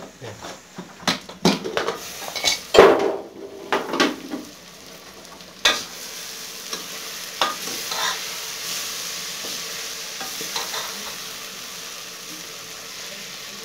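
Metal clanks as the lid of an aluminium pressure cooker is handled and taken off, the loudest about three seconds in. Then a metal spoon stirs and scrapes potato and cauliflower curry in the pot, with a steady sizzle as it fries.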